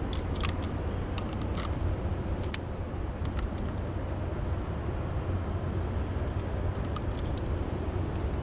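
Steady low outdoor rumble of wind and city traffic, with light metallic clinks and jingles of rope-access hardware (carabiners and descender on the harness) several times in the first couple of seconds and again about seven seconds in.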